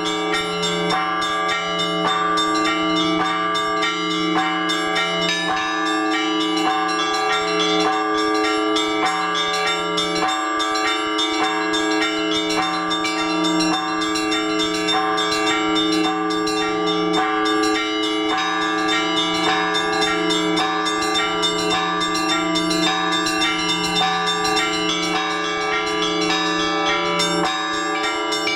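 Orthodox church bells hand-rung together in a peal. Small bells are struck in quick succession over the steady hum of larger bells, a ringing that calls people to the liturgy.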